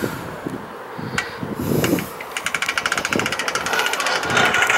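Fishing reel being cranked: a fast, even clicking from about halfway through, after a short swish about two seconds in.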